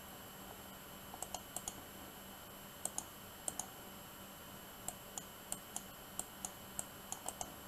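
Computer mouse clicking about twenty times at irregular intervals, some clicks in quick pairs or threes, as points are placed to draw a line in mapping software.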